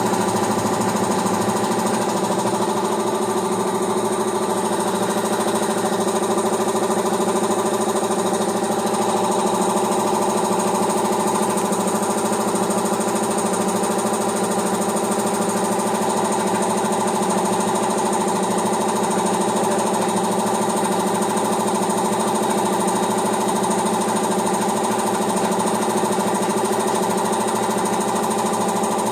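Piston air compressor running steadily, pumping air into its tank.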